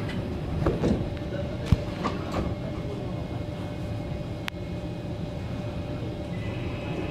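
Steady low hum inside a Kawasaki C151 metro car standing at the platform, with a few knocks and clicks in the first two seconds or so as the doors shut, and one sharp click about four and a half seconds in.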